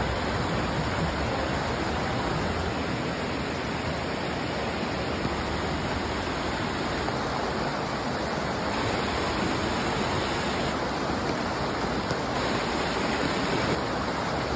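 Fast mountain stream rushing over boulders in white water, a steady, unbroken rush.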